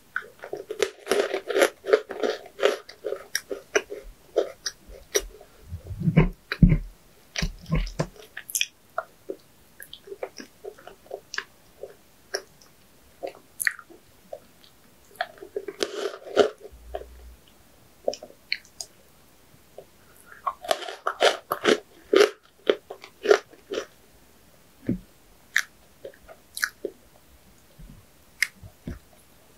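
Close-miked eating: a person biting and chewing sweets, with crunching in several dense bursts and scattered single mouth clicks between.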